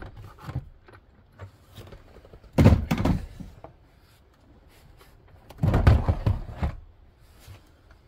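A Milwaukee Packout plastic toolbox being unlocked from the box below, lifted off the stack and set down: two bouts of hard plastic knocking and scraping, one about two and a half seconds in and one about six seconds in, each lasting under a second.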